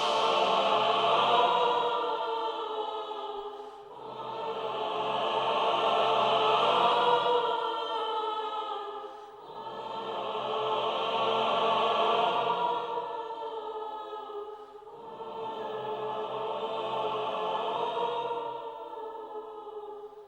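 Background music: slow, sustained choir-like chords that swell and fade in four long phrases.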